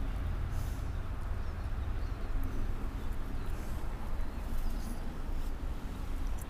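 Truck engine idling with a steady low rumble, heard from inside the horse trailer hitched to it.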